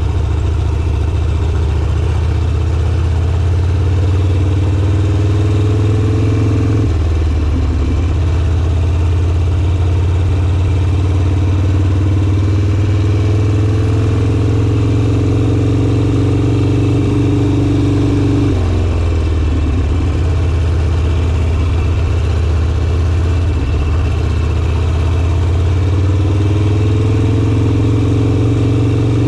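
Harley-Davidson Sportster's air-cooled V-twin running under way. Its revs climb slowly and then drop sharply, about seven seconds in, again past the middle and once more near the end.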